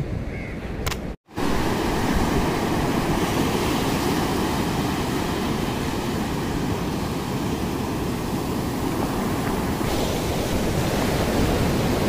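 Steady rush of sea surf breaking on a sandy beach, with wind rumbling on the microphone. The sound cuts out completely for a moment about a second in, then the surf noise carries on unbroken.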